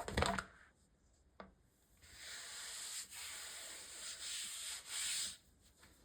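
Foil Pokémon card booster pack being handled: a few quick clicks and taps, a single click, then about three seconds of steady rubbing and crinkling of the foil wrapper.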